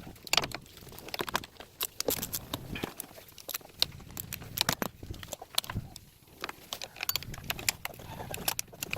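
Irregular metallic clicks and clinks of hand tools, a ratchet and socket working on the alternator mounting bolts.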